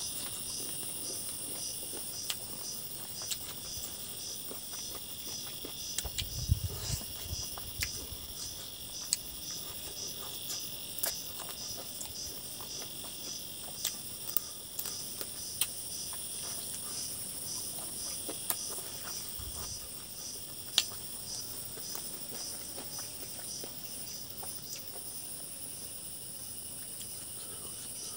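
Steady high insect chirping that pulses about three times a second, with scattered sharp clicks and smacks of chewing and eating chicken by hand. Two low bumps come about a third of the way in and again near two-thirds.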